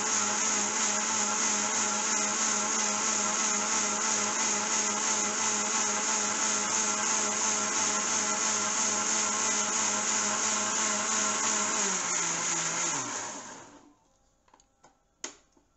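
Preethi Zodiac mixer grinder running steadily at speed, grinding boiled tomatoes to a puree in its steel jar. About twelve seconds in the motor stops and winds down, its pitch falling until it goes quiet. A few light clicks and one sharper knock follow near the end.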